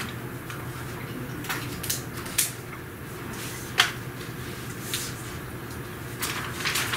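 Scattered knocks and clinks of small objects and plastic containers being handled and set down on lab tables, the sharpest about four seconds in and a quick cluster near the end, over a steady low hum.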